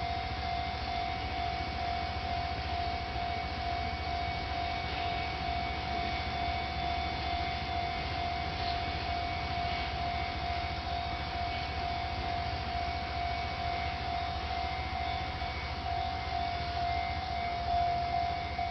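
Japanese railway level-crossing warning alarm ringing: a steady electronic tone that holds without a break, the warning that a train is approaching.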